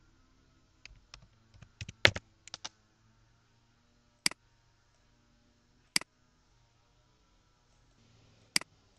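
Typing on a computer keyboard: a quick run of keystrokes in the first three seconds, then three single clicks spaced a second or two apart.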